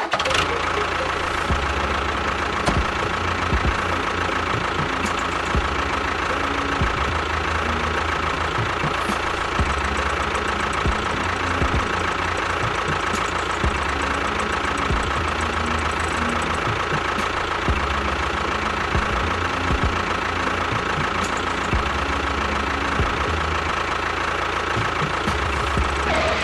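An engine running steadily with a rough, knocking beat. It starts and stops abruptly.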